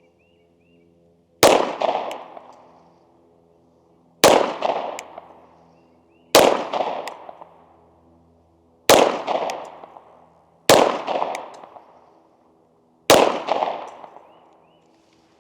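Six shots from a SIG Sauer P365 XL 9mm pistol in slow, aimed fire, about two seconds apart. Each sharp crack trails off in an echo lasting about a second.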